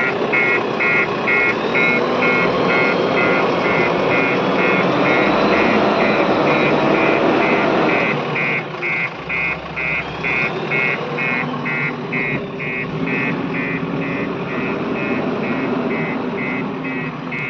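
Backhoe loader engine running under a rapid, evenly repeating electronic beep, about two to three beeps a second. The engine noise drops in loudness about eight seconds in while the beeping goes on.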